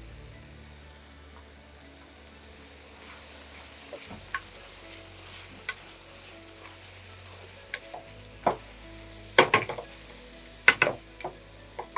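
Food sizzling in a frying pan as it is stirred with a wooden spatula, with sharp knocks of the spatula against the pan that come more often and louder near the end, the loudest a few in quick succession.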